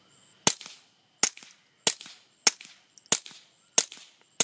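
Seven suppressed .22 LR pistol shots from a Ruger Amphibian and a High Standard HD Military, evenly spaced about two-thirds of a second apart. Each is a sharp crack with a short fading tail, and the two pistols sound the same.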